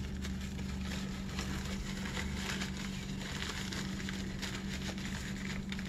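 Paper coffee filter rustling and crinkling as its cut fringe is handled and fitted over a sock puppet, with many small soft crackles over a steady low hum.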